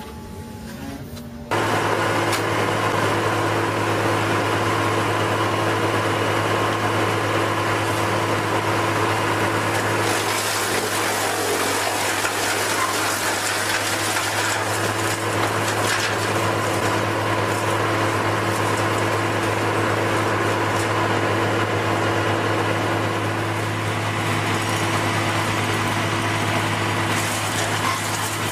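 A heavy machine's engine running at a steady speed, with a constant deep drone; it cuts in abruptly about a second and a half in.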